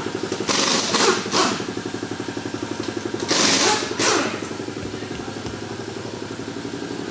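A motor runs steadily with a rapid, even pulse, and two loud bursts of hissing cut in over it, one about half a second in and one about three seconds in.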